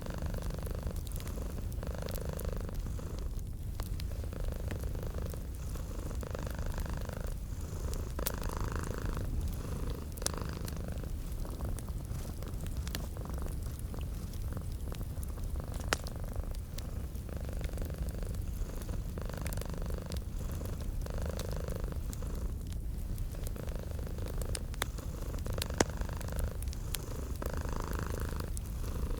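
Domestic cat purring steadily, a low rumble that swells softly with each breath. Scattered sharp pops and crackles from a fireplace fire sound over it.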